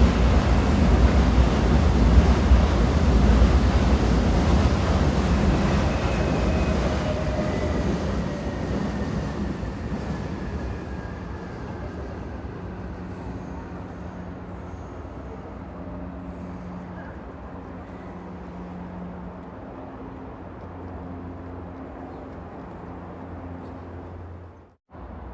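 Train running, a loud rumble that fades over about ten seconds to a quieter steady hum, with a faint falling whine partway through. The sound drops out briefly near the end, then resumes.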